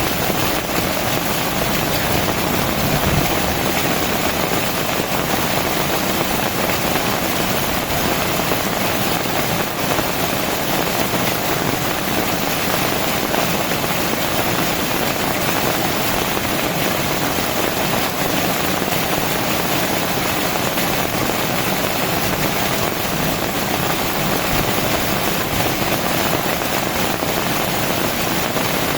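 Heavy rain pouring down steadily, a dense unbroken hiss with no letup.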